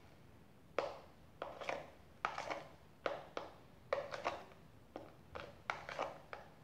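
A thin stick stirring a thick, foamy slime mixture of glue and shaving foam in a small plastic bowl, knocking and scraping against the bowl in sharp, uneven clicks about two a second.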